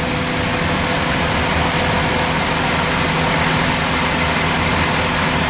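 A large vacuum/water truck's engine and suction pump running steadily: a constant rushing noise over a low engine hum.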